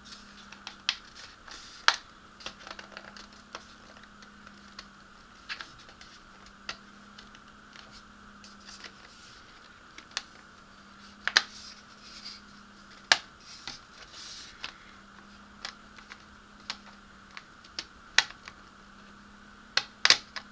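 Irregular clicks and taps of a Revell Goodyear blimp kit's plastic hull half being handled and pressed by hand, a few sharper knocks standing out, over a faint steady hum.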